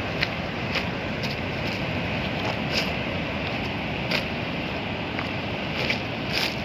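Steady rush of wind and breaking surf on a phone microphone, with irregular sharp crackling clicks about twice a second.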